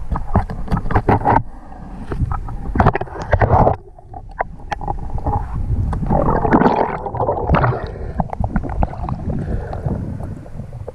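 Water churning and bubbling around a spearfisher's underwater camera as he dives and surfaces, with many sharp knocks and clicks. It goes briefly quieter about four seconds in.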